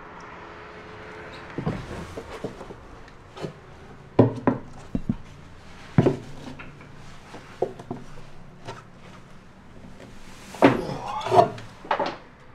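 Footsteps and scattered knocks on the fibreglass steps of a catamaran hull as someone climbs down through a deck hatch, with a cluster of louder bumps near the end.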